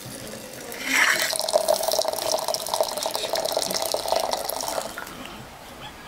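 Hot water being poured into a porcelain teapot: a steady splashing fill that starts about a second in and stops shortly before the end.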